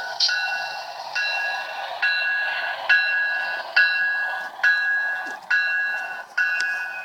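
Railroad warning signal sounding in a steady series of ringing tones, just over one a second, each starting sharply and fading before the next.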